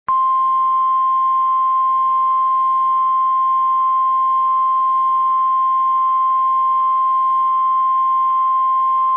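Emergency alert attention tone: a single steady pitch of about 1,050 Hz, the NOAA Weather Radio-style warning alarm, that starts abruptly and holds unbroken. It is the signal that an emergency broadcast message is about to follow.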